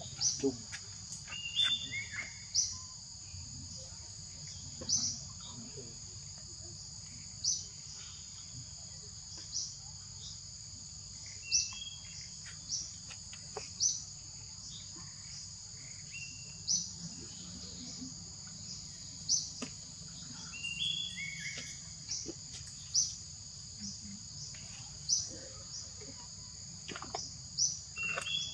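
Forest ambience: a steady high-pitched insect drone, with short bird chirps every couple of seconds.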